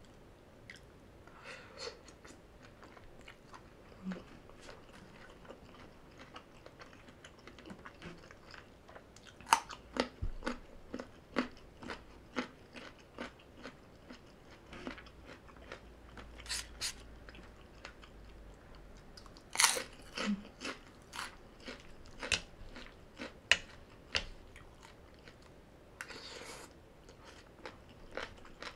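A person biting and chewing crunchy food, with scattered sharp crunches and clicks. The loudest bites come about ten and twenty seconds in.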